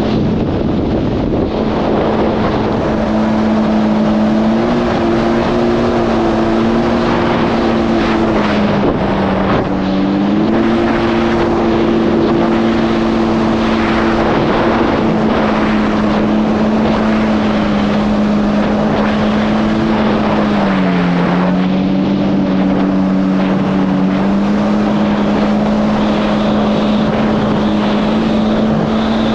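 Yamaha GP1800R SVHO jet ski's supercharged engine running hard at speed over a rush of wind and water. The engine pitch drops briefly twice as the throttle eases, about a third of the way in and again past two-thirds, then climbs back.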